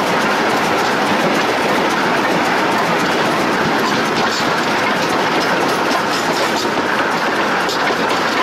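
Steam locomotive under way, heard from right beside its driving wheels and running gear: a steady, dense rush of running noise with faint scattered clicks.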